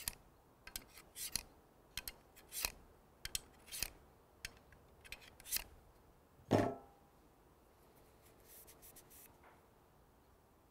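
A metal file drawn in short strokes along the cutting blade of anvil-type hand pruning shears, sharpening the edge along its contour: about a dozen quick scrapes over the first five seconds. About six and a half seconds in, a single clank with a short ring as the file is set down on the table.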